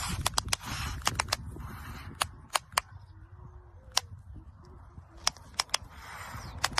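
Long-eared owl snapping its bill in a dozen or more sharp, irregular clicks, the defensive threat display it gives with wings spread, over a low rumble of wind on the microphone.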